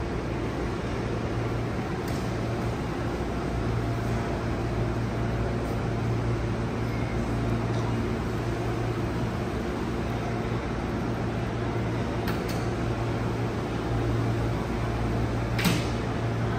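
Steady low hum of air-conditioning or ventilation machinery, with a few faint ticks and one sharp click near the end.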